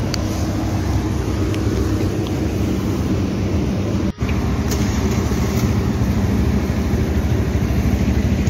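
Steady low rumble of street traffic, with a brief dropout of all sound about four seconds in.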